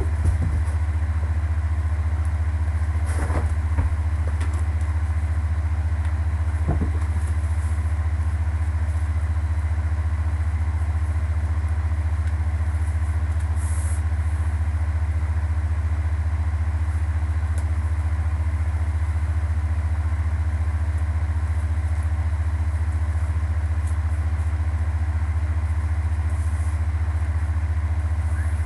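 A steady low hum with no change in pitch or level, and a few faint clicks in the first seven seconds.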